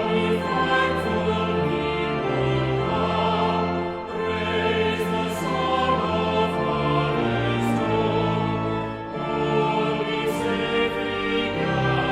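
Music: a choir singing a slow piece with instrumental accompaniment, sustained chords over a bass line that moves every second or so.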